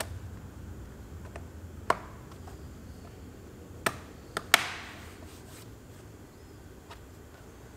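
Plastic trim cover being pressed into place: four sharp clicks and snaps, the last and loudest about halfway through, with a short ring after it.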